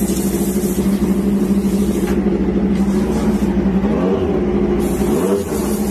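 Moto2 racing motorcycle engine running at a steady fast idle, its revs rising and falling slightly a couple of times in the second half.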